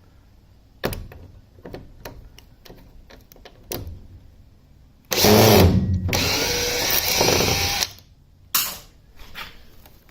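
A power drill runs for nearly three seconds, about five seconds in, with its motor pitch shifting as it works on screws. Scattered clicks and knocks of tools being handled come before and after it.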